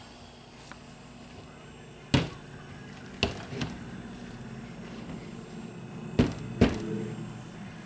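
A few sharp knocks of hard plastic, two or three about two to three and a half seconds in and two more about six seconds in: a plastic measuring pitcher set down on the counter and a spatula tapped against a container of thick soap batter.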